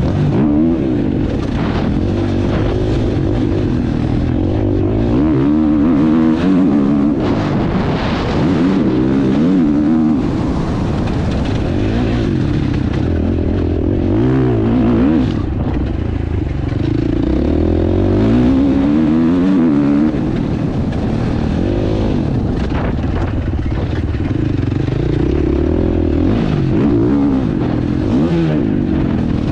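Husqvarna motocross bike's engine heard on board, revving up and falling back over and over as it accelerates, shifts and brakes around the track, with wind noise on the mic and occasional knocks from the bike.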